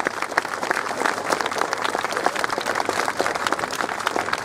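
Large crowd of spectators applauding, a dense, steady patter of many hands clapping.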